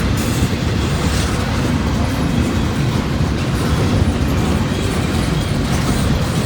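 Freight train cars rolling past on the rails, a steady, even noise strongest in the low range.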